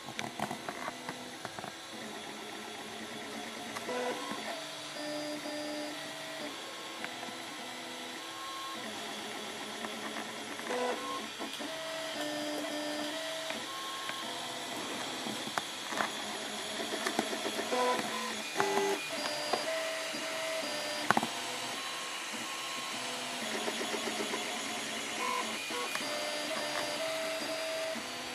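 Dagoma 3D printer printing: its stepper motors whine in short steady notes that jump from pitch to pitch as the print head and bed move, over a steady hiss, with a few sharp clicks.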